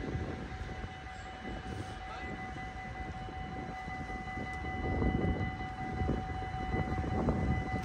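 Dutch level-crossing bells ringing steadily while the half-barriers rise after a train has passed, over a low rumbling noise that grows louder in the second half.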